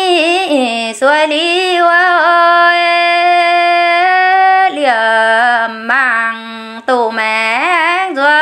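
A woman's voice singing a Red Dao (Iu Mien) folk song unaccompanied, with wavering ornamented turns. About two seconds in she holds a long steady note.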